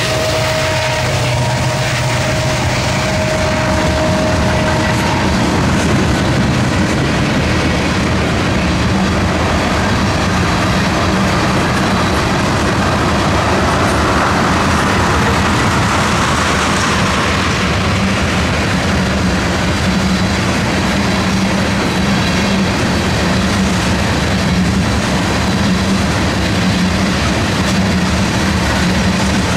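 Norfolk Southern manifest freight train rolling past, a loud, steady run of rail cars over the track.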